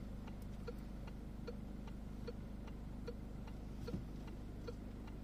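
Car's turn-signal indicator ticking in an even tick-tock rhythm, about two and a half clicks a second, over a low steady hum.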